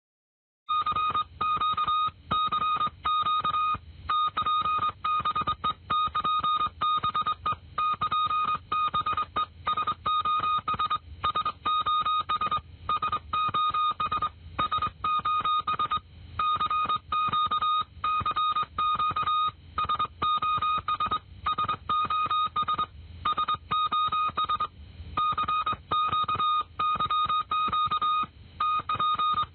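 Morse code SOS distress signal: a single high beeping tone keyed on and off in short and long beeps, repeating, over a faint low rumble.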